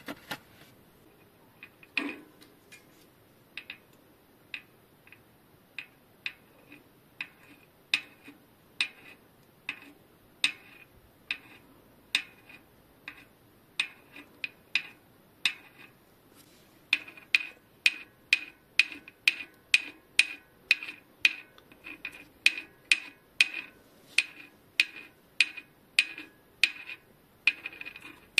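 A series of sharp, ringing metallic clicks from small parts during bicycle hub work. The clicks come irregularly, about one a second, then turn louder and quicker, about two a second, from about halfway through.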